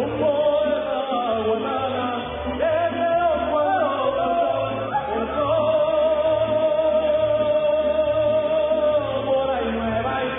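Mariachi song: a singer's voice over string accompaniment with a steady bass beat. The voice holds one long note for about three seconds past the middle.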